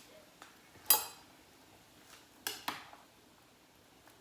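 Kitchenware clinking: one sharp, ringing clink about a second in, then two lighter knocks in quick succession about two and a half seconds in.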